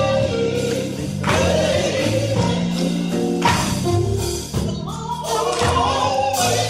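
Live gospel music: a woman singing lead over a band with drums and bass guitar, with several sharp drum or cymbal hits.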